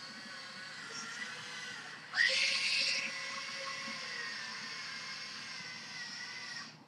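Electric drive motors and gearboxes of a Dagu RP5 tracked robot chassis whining as it drives under touchscreen control. The whine grows louder with a short rise in pitch about two seconds in, then stops abruptly near the end.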